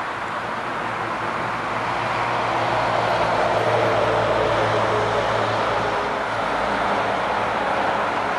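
Boeing 787-8 Dreamliner's GE GEnx jet engines at approach thrust on final descent: a steady jet roar with a faint whine, swelling to its loudest about halfway through as the airliner closes in, then easing slightly.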